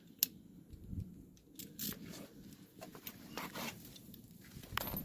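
Scattered light clicks and rustling of hand tools being handled, a 3/8-inch drive ratchet and 13 mm socket, with the sharpest click about a quarter second in.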